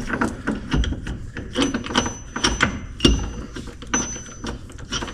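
Irregular clicks and clanks of hand tools, with ratchets working on a wheel bearing press tool, and a thin high squeak twice.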